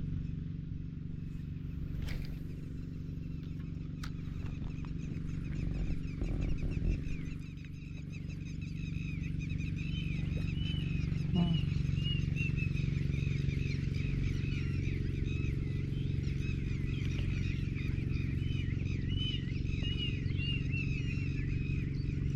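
Rice-field ambience: many small animals keep up rapid, repeated chirping calls over a steady low hum.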